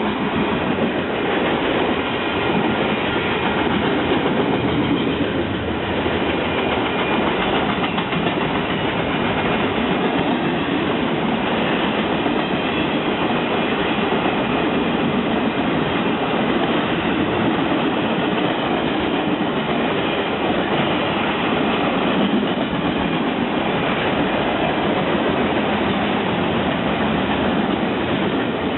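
A train's cars rolling past on the track, a steady, unbroken noise of wheels on rails.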